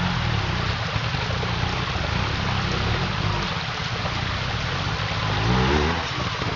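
Trials motorcycle engine running steadily, revved once near the end with a short rise in pitch, over the steady rush of a stream.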